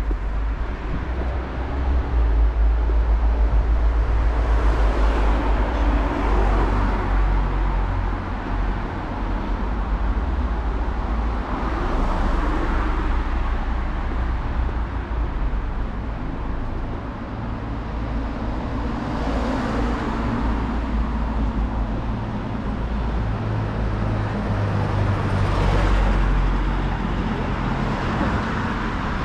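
Street traffic: motor vehicles driving past on a narrow street, several swelling and fading one after another over a steady low rumble.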